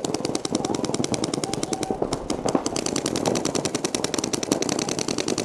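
Several paintball markers firing rapid strings of shots at once, making a dense, continuous crackle of many shots a second.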